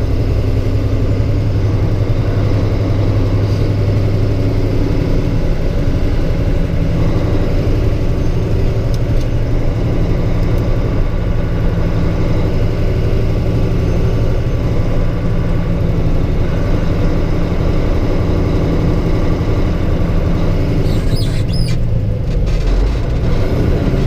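Semi-truck diesel engine running steadily while the truck drives, heard inside the cab, its pitch shifting a little over time. A few light clicks and rattles come near the end.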